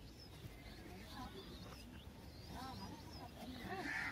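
Faint outdoor background with distant voices and a few short, soft calls.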